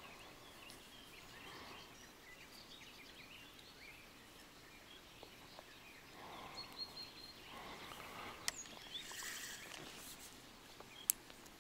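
Quiet lakeside ambience with faint, distant bird chirps and calls scattered throughout. Two sharp clicks, about eight and a half and eleven seconds in.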